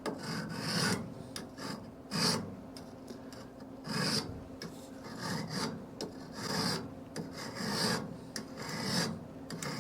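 Hand file rasping back and forth across the welded joint of a steel bandsaw blade, dressing off the weld flash (slag) pushed up where the two ends were butted together, with a stroke roughly every second.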